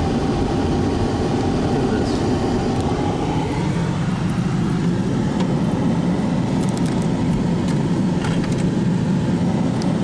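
Steady engine and road noise of a car driving, heard from inside the cabin as a low rumble.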